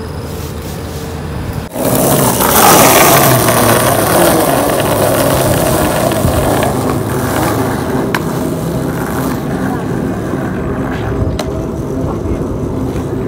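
Skateboard wheels rolling on rough concrete: a loud, even rumbling hiss that starts suddenly about two seconds in and slowly fades as the board rolls away, with a few faint clicks.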